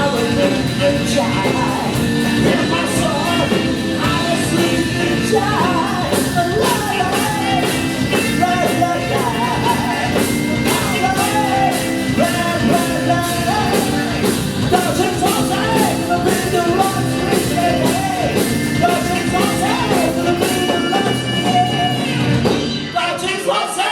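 Live rock-and-soul band playing with a sung lead line over guitar, bass and drums, closing on a held final chord that cuts off just before the end.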